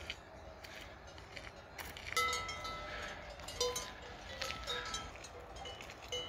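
Cowbells on grazing cows clanking irregularly, several bells of different pitch ringing on after each stroke. The strikes are sparse at first and come thicker from about two seconds in.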